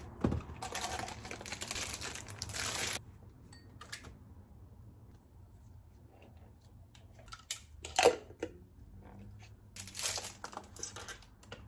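Clear plastic wrapping crinkling and rustling as a plastic mug is unwrapped. There is a sharp knock about eight seconds in and another spell of rustling near the end.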